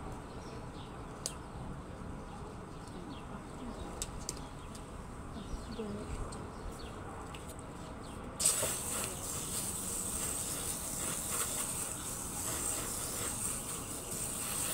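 A few small clicks over quiet outdoor background, then about halfway through a garden hose spray nozzle opens with a sudden, steady hiss of water spraying onto a mesh screen door.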